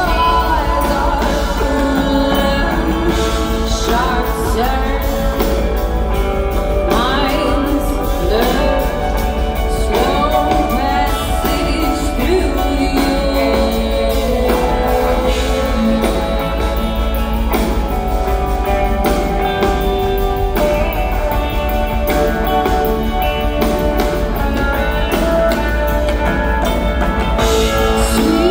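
Live band playing: a woman singing a gliding melody over electric guitar and drums with a steady beat and heavy low end.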